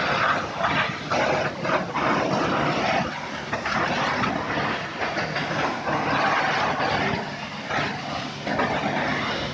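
High-pressure washer jetting water onto a scooter, a hiss that swells and dips as the jet is moved over the wheel and the ground. Under it runs the steady hum of the washer's pump.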